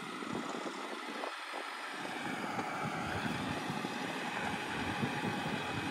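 A 4x4 vehicle running, heard under wind noise on the microphone; the sound fills out and grows louder about two seconds in.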